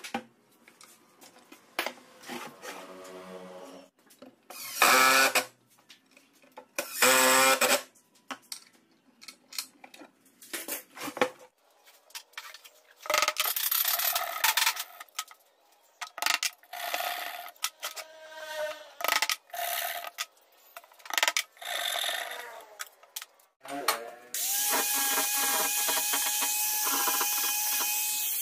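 Cordless impact driver whirring in short bursts as it drives screws into pine, then a hand saw rasping in a series of strokes as it trims wooden dowels flush. Near the end a corded grinder fitted with a sanding drum starts and runs steadily.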